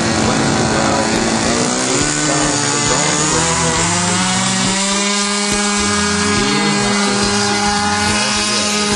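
The engine of a radio-controlled model Cessna running on the ground at a steady speed. Its pitch shifts about two seconds in, then holds steady.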